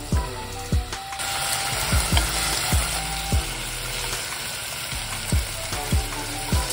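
Sliced beef sizzling in hot olive oil in a pot as it is stir-fried with chopsticks; the sizzle swells about a second in as the meat spreads into the oil. Background music with a steady beat plays underneath.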